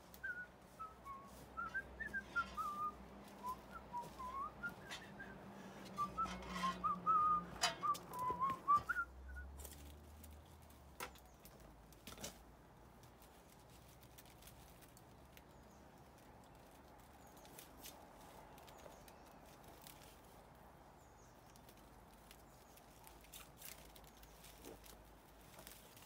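Whistling: a short run of notes that falls and rises again, played twice over the first nine seconds. After that it is quieter, with a few faint clicks.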